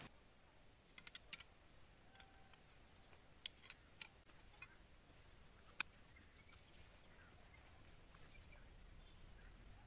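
Near silence broken by faint clicks and light knocks of tent pole sections being handled and fitted together, a cluster early and scattered ones after, with one sharper click a little past the middle.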